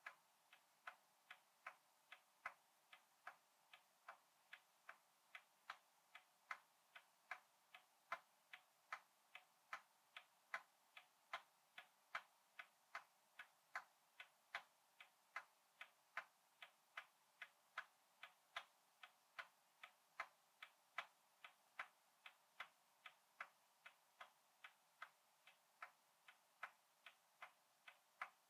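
A 100-year-old clock ticking faintly and evenly, about two to three ticks a second, with the beats alternating louder and softer in a tick-tock.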